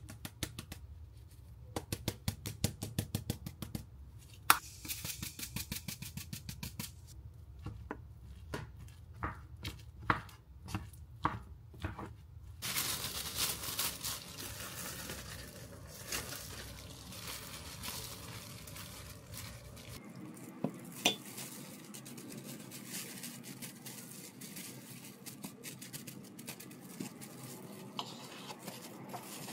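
Kitchen food-prep sounds: quick runs of utensils clicking and clinking against dishes, then a few seconds of hissing rustle about halfway through, then occasional lighter clinks.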